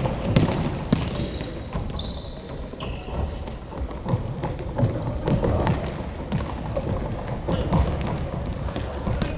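Futsal ball thudding from kicks and bounces on an indoor court, with players' shoes squeaking briefly on the floor a second or two in.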